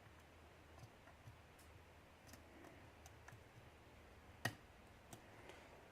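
Faint scattered clicks and ticks of a steel lock pick working the pins inside a Yale pin tumbler cylinder under tension, with one sharper click about four and a half seconds in.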